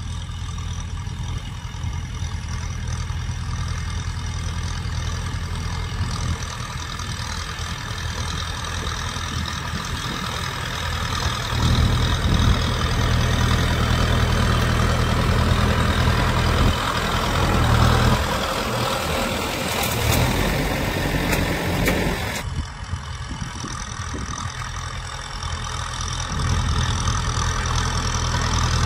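Kubota M6040 tractor's diesel engine running steadily under load while plowing. It grows louder from about the middle as the tractor comes close, then the sound changes abruptly about two-thirds of the way through.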